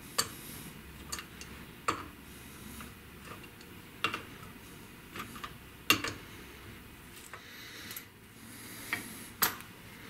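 Adjustable AN wrench clicking against an AN hose-end fitting as it is worked round to tighten the fitting onto an oil cooler hose clamped in a vise. The clicks are sharp, metallic and separate, about one a second, and the loudest comes about six seconds in.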